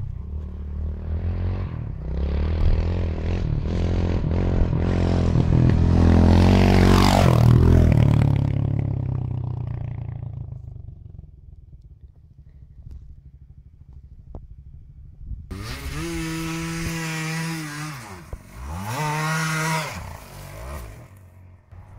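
Kawasaki KLR650 single-cylinder four-stroke approaching and passing, loudest about seven seconds in with its pitch dropping as it goes by, then fading away. From about fifteen seconds, the Cagiva Tamanaco 125 two-stroke revs hard in several rising and falling surges as it climbs a steep grassy bank.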